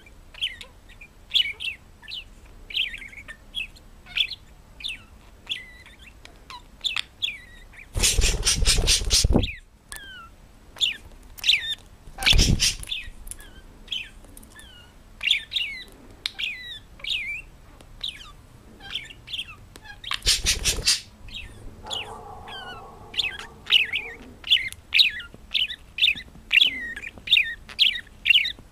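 Pet parrot chirping over and over in short high chirps, one or two a second. Three loud noisy bursts break in, the first a rapid flutter lasting over a second, and a lower pitched sound follows about two-thirds of the way in.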